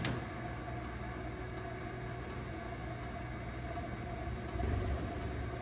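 Sunnen honing machine running: a steady motor hum with a faint whine. It grows somewhat louder about four and a half seconds in.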